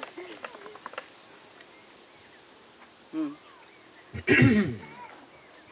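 An insect chirping in short, evenly spaced high pulses, about two a second. A person's brief voice sound breaks in about three seconds in, and a louder one, the loudest thing here, comes a second later.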